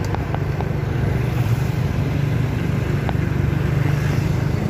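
Motorcycle engine running steadily while riding, with a low hum and road and wind noise.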